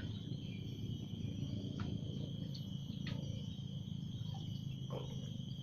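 A small electric mixer's motor hums steadily while it churns the bait mix. A cricket's steady high-pitched trill and a few light knocks sound over it.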